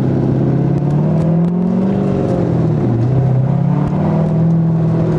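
Corvette C5's V8 engine running under way, heard from inside the car. The revs climb, drop back about three seconds in, then climb again and hold.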